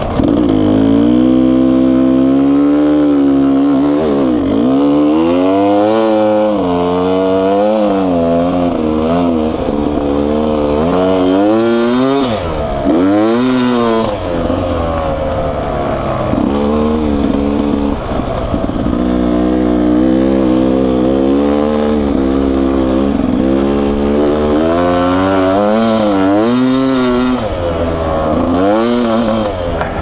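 Beta 300RR single-cylinder two-stroke enduro engine revving under way, its pitch climbing and dropping over and over as the throttle is worked and gears are changed.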